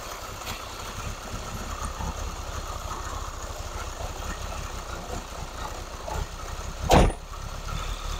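Freshly rebuilt Nissan SR20DET turbocharged inline-four idling with a fast, even low pulse, while the throttle body is adjusted to bring the idle up. A single sharp bang about seven seconds in.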